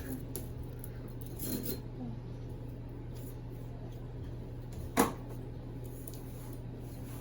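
A single sharp knock about five seconds in, over a steady low hum and faint handling noise.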